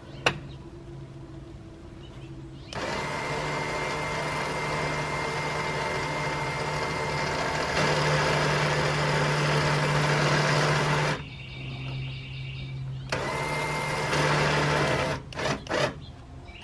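Warn electric winch motor running as it reels in synthetic rope under the wired remote: a steady whir with a high whine, one long pull of about eight seconds that gets louder for its last few seconds, then after a pause a second short pull of about two seconds.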